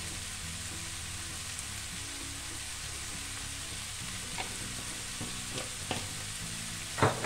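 Sliced leeks sizzling in oil in a frying pan, a steady hiss. A few light clicks come in after about four seconds, and a louder cluster of knocks near the end.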